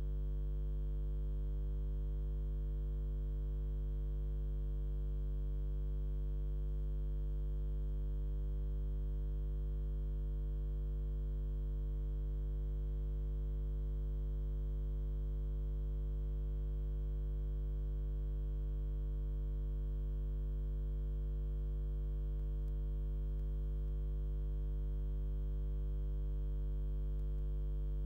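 Steady electrical mains hum, a low buzz with a stack of higher overtones that does not change at all.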